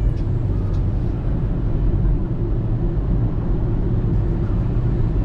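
Steady low rumble of a moving vehicle, even throughout with no distinct events.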